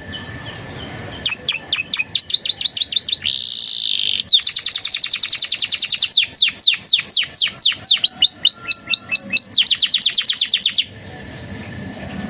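Domestic canary singing, trained on ciblek and prenjak song. After a couple of faint chips it gives rapid strings of repeated notes, a short buzzy note, then long fast rolls of down-slurred notes. It stops abruptly near the end.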